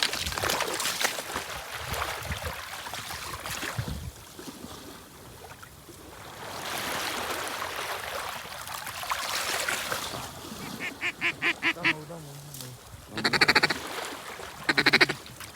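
Ducks quacking: a quick run of quacks a little after ten seconds in, then two louder, rapid runs of quacks near the end.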